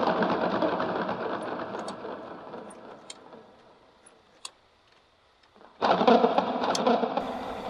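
Stalled motorcycle engine being tried again: a rough mechanical rumble dies away with a few light clicks, then starts up suddenly about six seconds in and fades once more.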